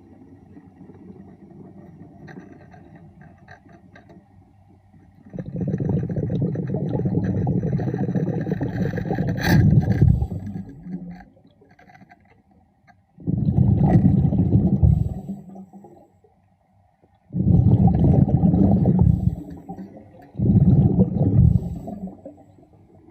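A diver's exhaled air bubbling underwater, in rumbling bursts a few seconds long with short pauses between, like a breathing rhythm.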